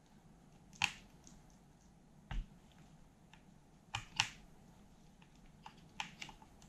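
Scattered light clicks and taps of a screwdriver and fingers working on metal parts inside an opened cassette deck, with one duller knock a little over two seconds in.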